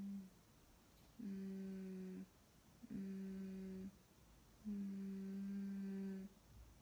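A woman humming a string of held, closed-mouth "mmm" notes, all on the same level pitch. Each is about a second or more long, with short pauses between them.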